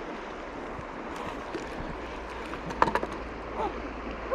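Steady rush of flowing creek water, with a quick cluster of sharp clicks about three seconds in.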